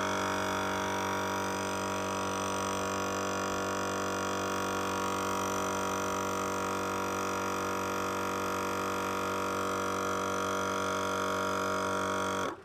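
EZ Flate M.O.A.B. dual-cylinder portable air compressor running at a steady, even pitch while inflating a truck tire. It cuts off abruptly near the end as the auto-air unit pauses to check the tire pressure.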